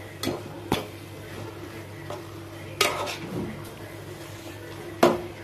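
Spatula stirring vermicelli upma in an aluminium pan, knocking against the pan in four sharp clinks, the last the loudest. A steady low hum runs underneath.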